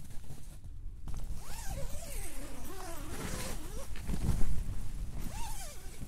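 A tent door zipper drawn in a long pull, its pitch rising and falling as the pull speeds up and slows, then drawn again briefly near the end. Underneath is the low rumble of strong wind on the microphone, gusting hardest about four seconds in.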